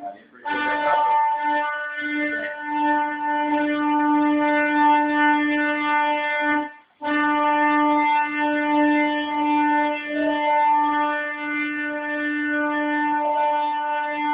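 Drive motors of a CNC pantograph cutting styrofoam, giving a steady buzzing whine at one pitch that stops briefly just after the start and again about seven seconds in, as the machine's moves pause.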